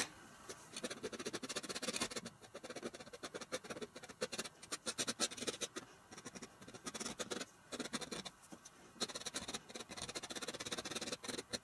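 Palette knife scratching quick, irregular strokes into wet oil paint on a canvas, scoring grass lines through the top layer down to the red underpainting.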